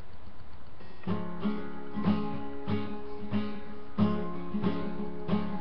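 Acoustic guitar strummed in a steady rhythm, starting about a second in, roughly two chord strokes a second over a low hum, picked up by a webcam microphone.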